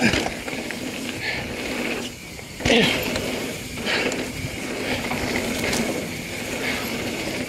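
Mountain bike riding fast down a dirt flow trail: steady tyre and rolling noise with wind rush, broken by two heavy thumps about three seconds apart.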